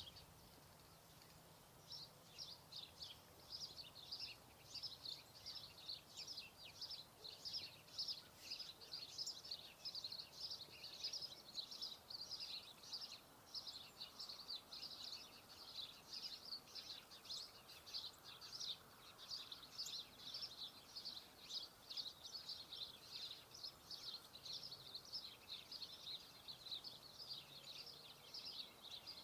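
Faint, rapid high-pitched chirping from small birds, about four chirps a second, starting about two seconds in and keeping on without a break.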